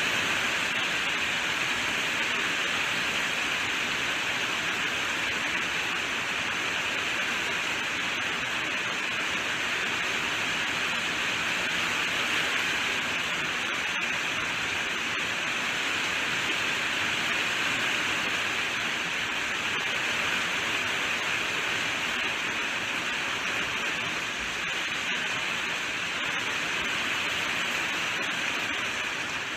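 Rain falling steadily, an even hiss with no single drops standing out.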